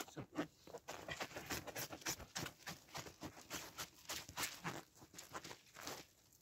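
Plastic stretch film crackling as it is pulled off the roll and wrapped around branch poles, a rapid irregular run of crinkles and clicks, mixed with boots crunching in snow.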